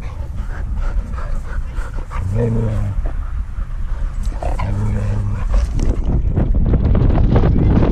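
Huskies playing: two short, low vocalizations a couple of seconds apart. From about six seconds in, a loud rushing and scuffling noise of wind and movement on a camera carried on the dog's back.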